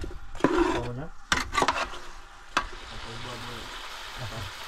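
A cooking pot being stirred with a utensil, with several sharp knocks of the utensil against the pot in the first half, then a steady sizzling hiss.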